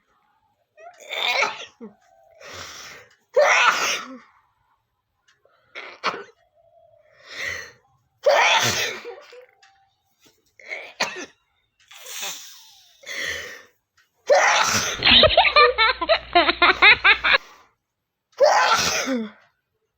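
A woman sneezing over and over, about a dozen separate sneezes a second or two apart. A little past halfway there is a loud, fast-pulsing stretch of about three seconds that cuts off abruptly.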